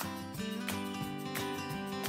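Instrumental background music with a steady run of notes, about three a second.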